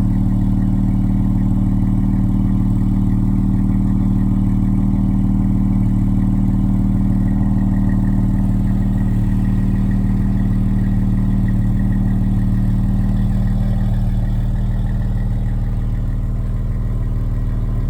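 Dodge Charger GT's V6 idling steadily through a Flowmaster 40 series exhaust after a cold start, with a deep, even exhaust note. About three quarters of the way through, the idle settles slightly lower and quieter.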